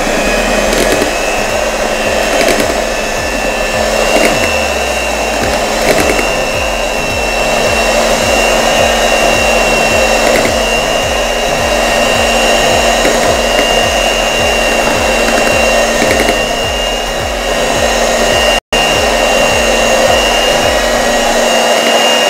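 Electric hand mixer running steadily at speed, its twin beaters whipping cream and condensed milk in a steel bowl: a constant motor hum with a high whine over it and a few light clicks.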